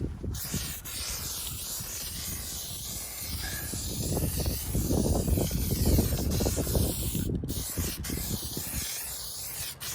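Black spray paint hissing out in long passes over a lawn-tractor frame, with a brief break about seven seconds in and a stop near the end; wind buffets the microphone with a low rumble.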